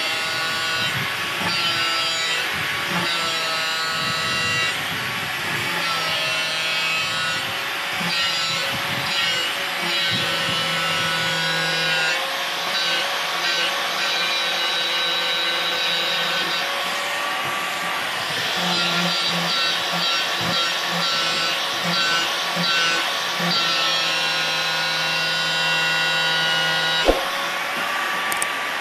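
Handheld angle grinder running with its disc grinding against the end of a Finolex PVC pipe, the motor's whine wavering in pitch as the disc bears on and eases off the plastic. This is grinding the pipe end to make the solvent-cement joint easier. A single sharp click comes near the end.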